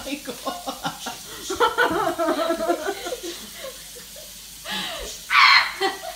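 People laughing and chuckling, with bits of chatter, and a short, loud, high-pitched squeal a little over five seconds in.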